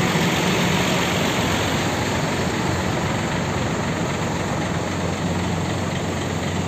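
Idling diesel engines of parked intercity coaches: a steady low hum under a broad, even rush of noise.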